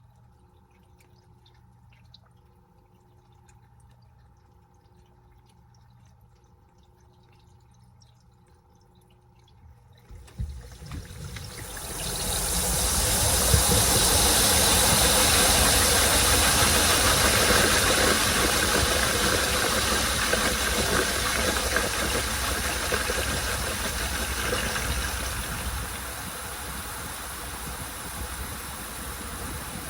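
Washing machine, quiet at first with a faint steady hum and a soft tone pulsing about once a second. About ten seconds in, a loud, even rushing starts and swells over two seconds. It then eases off gradually, with a step down near the end.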